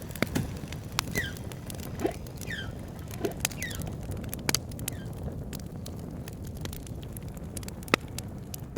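Campfire crackling with sharp pops, mixed with short falling squeaky whale calls over a steady low underwater rumble. The calls come about every half second to a second and stop about halfway through, leaving the crackles and rumble.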